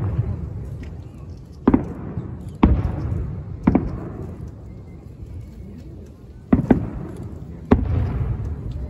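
Aerial firework shells bursting overhead: five sharp bangs, each trailing off in a low rumbling echo. The first three come about a second apart, then there is a pause of about three seconds before two more.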